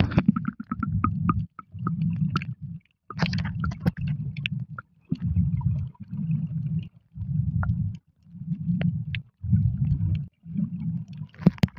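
Muffled underwater sound picked up by a submerged camera: a low rumble that comes in regular pulses of about a second each, nine in all, with short silent gaps between them and faint scattered clicks and crackles.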